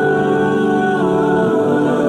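Background music of slow, long held notes that shift in pitch about once a second.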